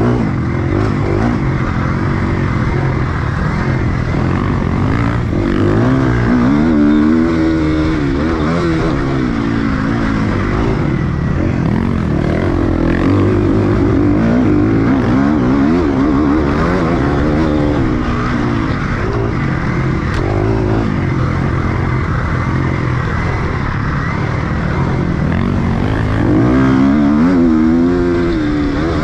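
Enduro motorcycle engine running under way, its note rising and falling with the throttle and swelling louder about seven seconds in and again near the end.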